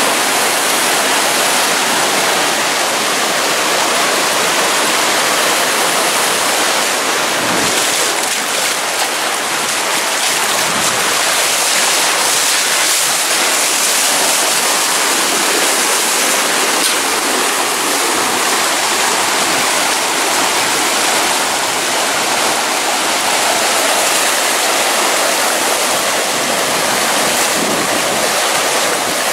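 Water rushing and splashing out of a burst underground water main, a loud steady torrent as it surges up through the yard and floods it.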